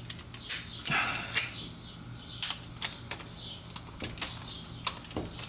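Scattered sharp clicks and light rattling from a torque wrench and sockets being handled.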